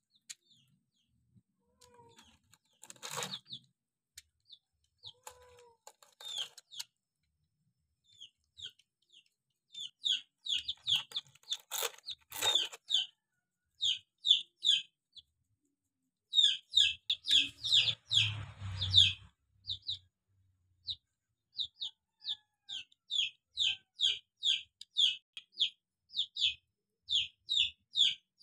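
A young domestic chick peeping over and over: short, high, slightly falling peeps in quick runs, sparse at first and nearly continuous from about ten seconds in. A couple of brief rustles break in, and there is a low bump near the loudest run of peeps.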